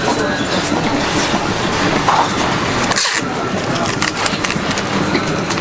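Busy street-market ambience: background voices over a steady din, with a short hiss about three seconds in.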